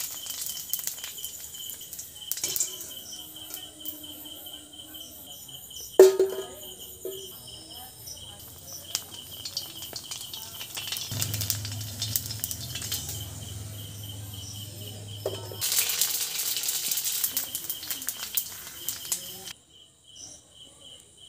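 Fuchka puris frying in hot oil in a wok, sizzling in spells, over a cricket's fast, steady chirping. There is a sharp knock about six seconds in and a low hum for a few seconds in the middle, and the sizzle cuts off abruptly near the end, leaving only the cricket.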